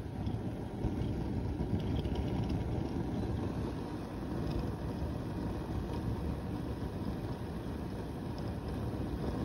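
Homemade soda-can alcohol penny stove burning with all its side jets lit: a steady low rushing of the flames.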